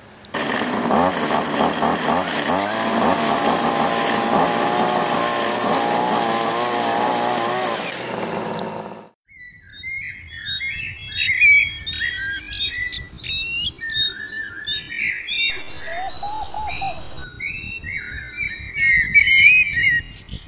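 Music for about eight seconds that cuts off, followed by many birds chirping.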